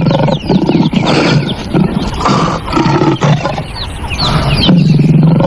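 Lion roaring and growling, a recorded sound effect, as one long rough growl that is loudest near the end.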